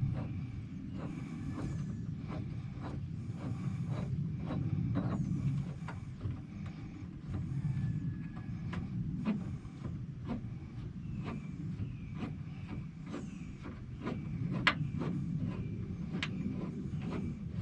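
Hand tools clicking and tapping irregularly against metal parts, small sharp ticks spread through, with one louder click near the end, over a steady low rumble.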